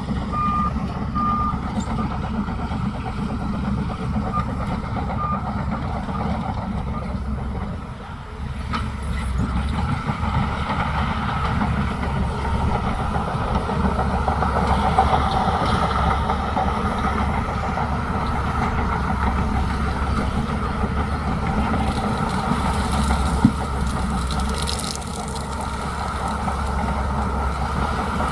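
Bulldozer diesel engine running steadily, its reversing alarm beeping a few times in the first seconds; from about ten seconds in the engine and machinery noise grows louder as it works.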